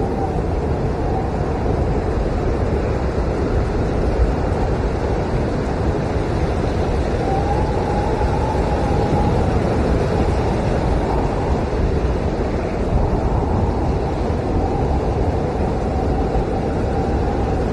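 Blizzard wind howling steadily: a low rushing roar with a faint wavering whistle that swells about seven seconds in and again near the end.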